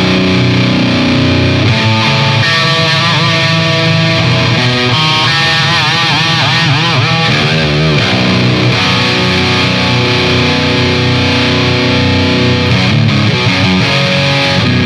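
Distorted electric guitar riffing through a Marshall DSL50 valve amp and an old Marshall 1960 4x12 cabinet loaded with Celestion G12T-75 and Vintage 30 speakers, picked up by a microphone at the speaker grille. About five seconds in come bent notes with wide vibrato, then the riffing goes on.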